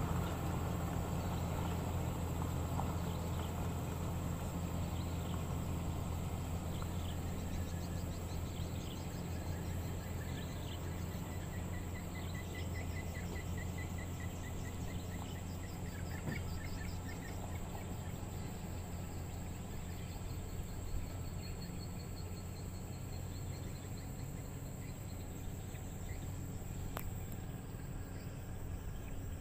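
Caterpillar 120H motor grader's diesel engine running with a steady low drone, growing slightly quieter as the grader moves away.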